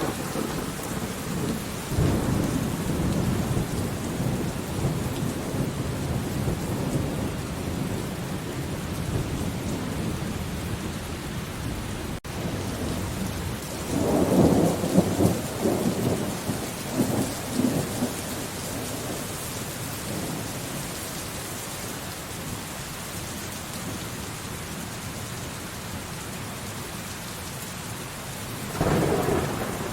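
Steady rain falling, with rolling thunder rumbling now and then. The loudest, crackling peal comes about halfway through, and another begins near the end.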